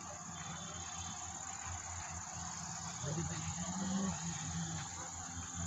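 Steady high-pitched chirring of crickets, with a faint low hum beneath.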